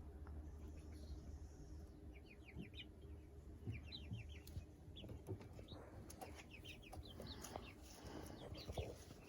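Young chickens chirping and peeping in quick runs of short notes, starting about two seconds in and going on, faint over a steady low hum.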